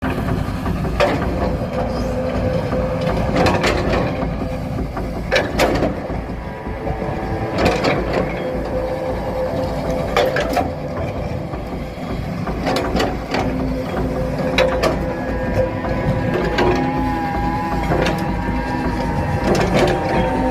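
Wheeled excavator running, a steady engine and hydraulic hum under sharp knocks every two to three seconds as the bucket works the earth.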